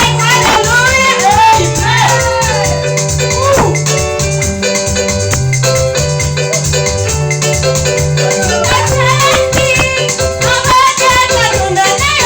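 Upbeat praise music: shakers rattling over a repeating bass line and held keyboard chords, with voices singing over it in the first few seconds and again from about two-thirds of the way through.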